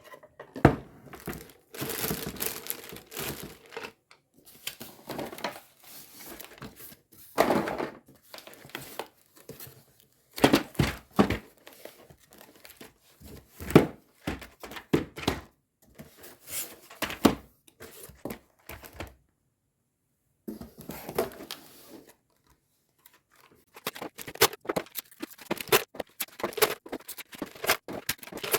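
Cardboard boxes of 9mm cartridges being torn open and emptied into a plastic freezer bag: irregular tearing and crinkling with short knocks, and a pause of a second or two about two-thirds of the way through.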